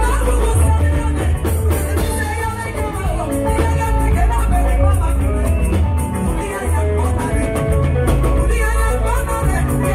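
Live band music with a woman singing lead into a microphone over drum kit, electric guitar and keyboard, with a heavy, pulsing bass line.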